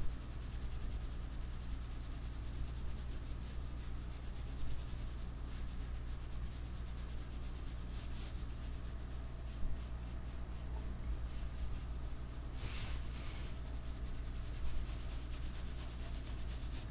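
Graphite pencil shading on paper: rapid, repeated scratchy strokes over a steady low hum.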